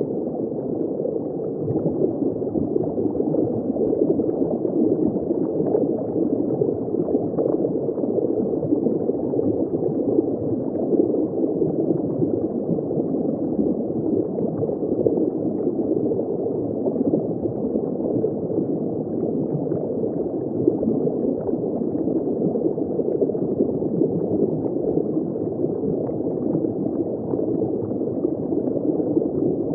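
Underwater ambience of bubbling water heard just below the surface: a steady, muffled rush of many small bubbles and gurgles, with no highs.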